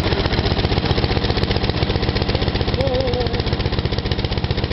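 The 12.5 hp engine of a Westwood T1300 ride-on mower running steadily at idle, with even firing pulses.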